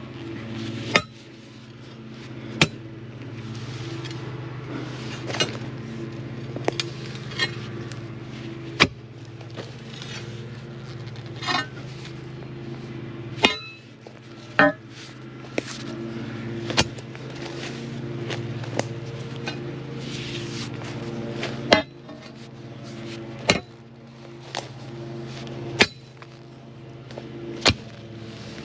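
Sharp clinks and knocks, about one every one to two seconds, some ringing briefly, over a steady low hum.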